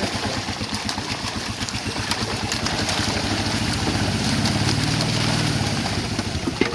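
A small engine running steadily with a fast, even chug, picking up slightly about four seconds in.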